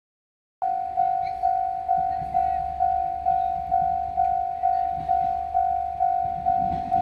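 Japanese railway level-crossing warning bell ringing: a repeated electronic clanging tone at about two strikes a second. It starts abruptly about half a second in.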